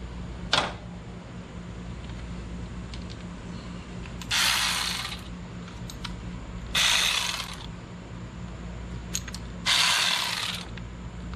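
Small hand ratchet clicking as it backs out T20 Torx screws: three separate spells of quick pawl clicks, each about a second long and a couple of seconds apart, after a single click shortly after the start.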